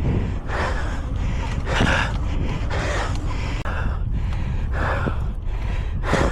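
A man breathing hard and gasping for air from exertion, a quick run of heavy breaths in and out, over a steady low rumble of wind on the microphone.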